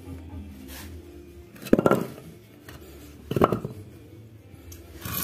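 Two clattering knocks, about a second and a half apart, as wooden blocks are handled and set against a motorcycle's alloy wheel on a concrete floor.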